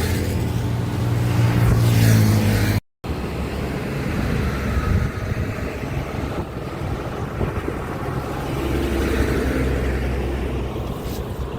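Heavy diesel trucks passing on a busy highway: a deep engine drone that grows louder, then breaks off in a brief dropout about three seconds in, followed by steady traffic rumble and another passing engine, with wind on the microphone.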